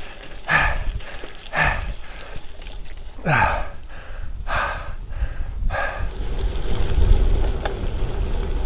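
A cyclist breathing hard, five heavy exhales about a second apart. From about six seconds in, wind noise on the microphone builds into a low rumble.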